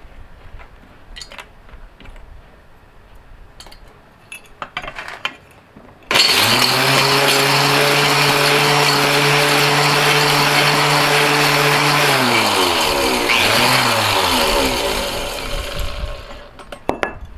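Light clinking and handling for the first few seconds. Then, about six seconds in, the Mighty Mill ore crusher starts suddenly, its motor humming steadily while a batch of SATA power connectors rattles and shreds inside. After about six seconds it is switched off and spins down with a falling hum.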